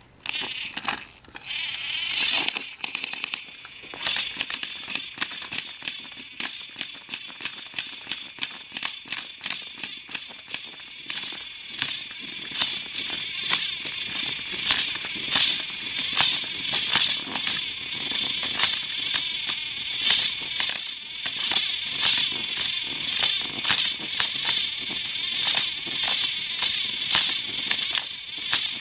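Two battery-powered TrackMaster toy train engines running against each other on plastic track, their motors and gears giving a steady high whine over a fast, continuous rattle of clicks. The rattle grows busier partway through as the engines strain and shift.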